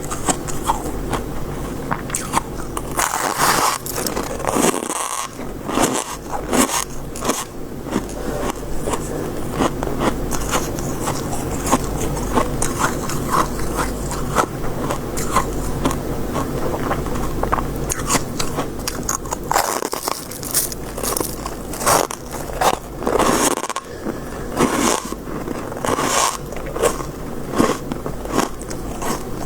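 Close-up biting and chewing of soft, white, frosty shaved ice scraped from a freezer, with many irregular crisp crunches over a steady low hum.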